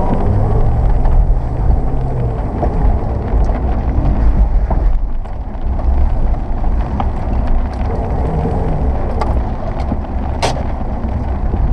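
1999 Subaru Forester's flat-four engine running with a steady low rumble, with a few scattered knocks and one sharp knock near the end.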